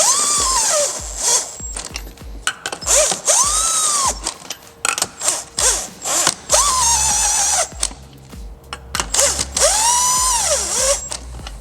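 Power tool running lug nuts down onto a golf cart wheel hub to snug them, in four bursts of a whine that speeds up and winds down, with rattling clicks between the bursts.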